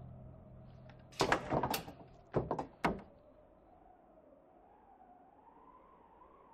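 A quick flurry of knocks and clatters on wooden boards, about five in under two seconds, then only a faint wavering tone.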